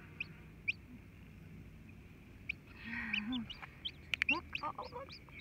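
Chicks peeping in short, high cheeps, sparse at first and coming quickly in the second half, while a chick hatches under the Silkie hen. The hen joins with low clucking calls from about three seconds in, and a few sharp clicks come about four seconds in.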